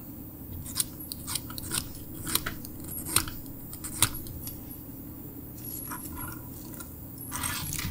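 Hand file scraping across a metal watch case's lugs in short, irregular strokes, a rough cut to take out dents and cuts in the worn edges.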